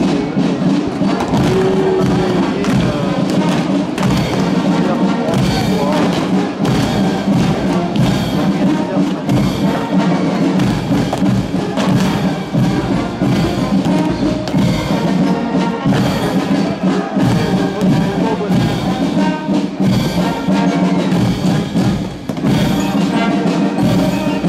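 Brass marching band playing a march on trumpets, trombones and tubas over a steady drumbeat.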